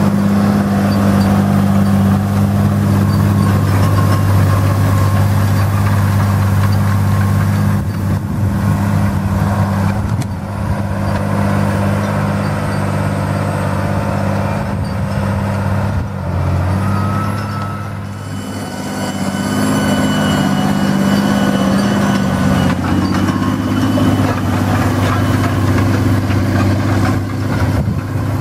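John Deere 8320 tractor's six-cylinder diesel engine running steadily under load while pulling a disc harrow through stubble, a deep steady drone with a few brief dips in level.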